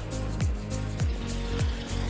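Background music with a steady beat: a deep kick drum about every half second or so, with hi-hats and a sustained bass line.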